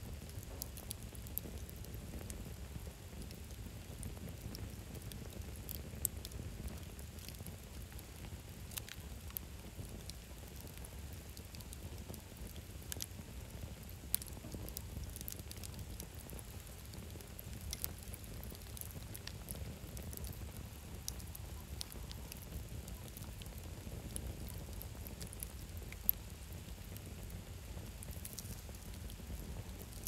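Wood campfire of split logs burning, crackling with scattered sharp pops, a few louder than the rest, over a steady low rumble.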